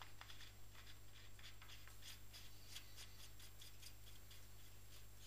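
Faint handling noise: scattered light scratchy clicks of hands rubbing and gripping the telescope equipment, over a steady low hum.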